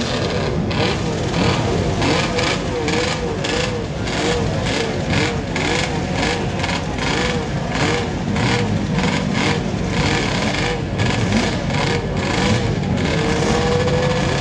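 Several racing motorcycle engines running together and being revved in short, repeated blips, with one longer rev near the end.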